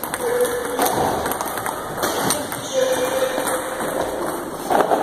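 Table tennis balls tapping in quick irregular succession during multiball practice: plastic balls clicking off the rubber bats and bouncing on the tabletop.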